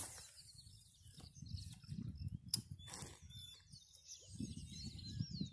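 Small birds chirping over a low rumble of wind on the microphone, with a couple of sharp clicks a little after halfway.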